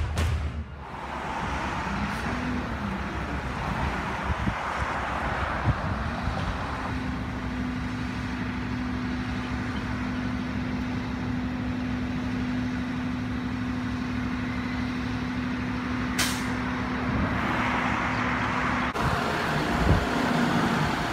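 Diesel front-load garbage truck engine running, with a steady whine through the middle and a short sharp burst of air hiss about 16 seconds in. Near the end the sound changes to a pickup-based scout truck driving past.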